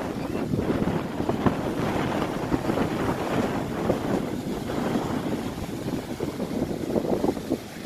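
Wind buffeting the microphone in uneven gusts, over the steady wash of surf breaking on the beach.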